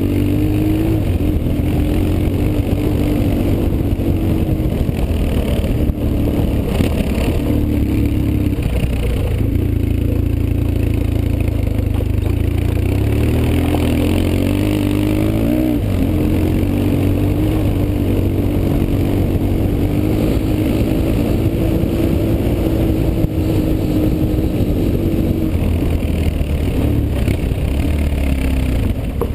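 BMW R 1150 GS's boxer twin engine running under way, picked up by a bike-mounted camera, its pitch rising and dropping several times as the revs change.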